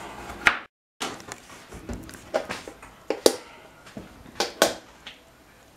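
Scattered clicks and knocks, about seven of them, from things being handled in a kitchen, with a brief dead silence about a second in.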